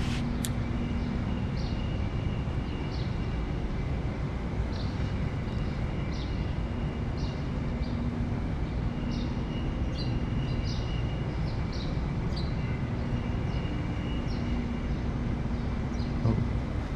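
Outdoor ambience: a steady low rumble, with short high chirps every second or so, typical of birds.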